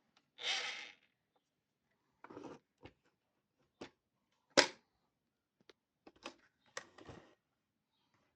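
A toy sewing machine being handled, not running: scattered clicks and knocks with a few brief rustles. The loudest is a sharp click about four and a half seconds in.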